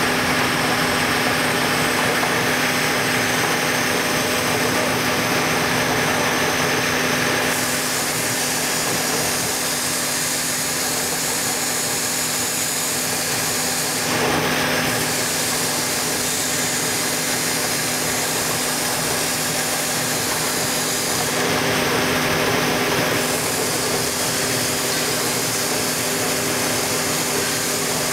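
Small CNC router milling a cylindrical workpiece turned on a rotary axis: the spindle runs with a steady hum and hiss. A higher-pitched cutting hiss comes and goes, strong for the first seven seconds or so, then briefly again around the middle and about three quarters through.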